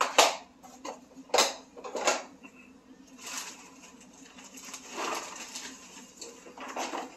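Plastic mailer bag rustling and crinkling as packaging is handled and a boxed tool set is pulled out of it, with a few sharp clicks and knocks in the first two seconds.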